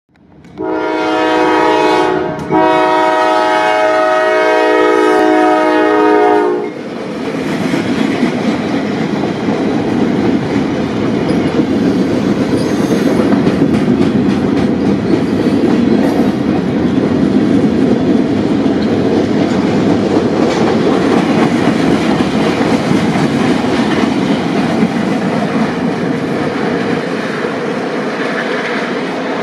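The CSX ES40DC lead locomotive's air horn sounds a short blast and then a long one of about four seconds. Then the freight cars roll past with a steady rumble of wheels on the rails, easing a little near the end as the caboose goes by.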